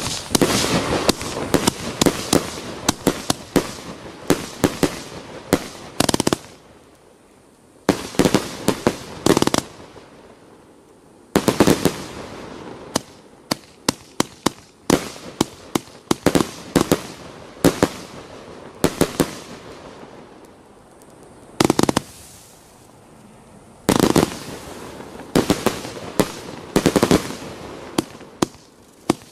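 A 75-shot 30 mm compound firework cake firing: rapid volleys of sharp bangs as the shots launch and burst. The volleys come in runs of a few seconds, broken by brief pauses.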